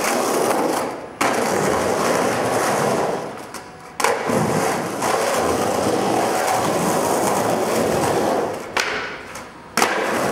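Skateboard wheels rolling on rough concrete in a steady noise that drops away and comes back abruptly three times: about a second in, at four seconds, and near the end.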